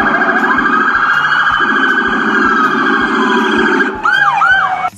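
American police car siren: a slow wail that rises and then falls, over a fast-pulsing higher tone and a low pulsing tone, breaking into a few quick up-and-down whoops near the end before cutting off.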